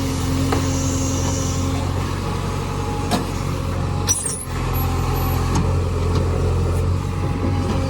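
JCB 3DX backhoe loader's diesel engine running steadily, with a few light clicks and a brief high squeak about four seconds in.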